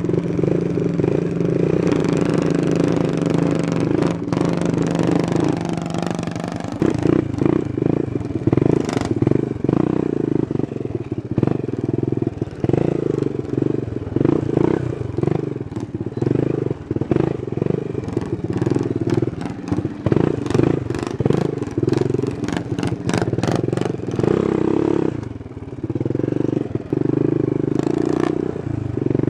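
Straight-piped 110cc Chinese quad's small single-cylinder engine running loudly on a rough, muddy trail. It holds a steady note at first, then goes uneven with the throttle, among many rattles and knocks from the machine bouncing over the ruts.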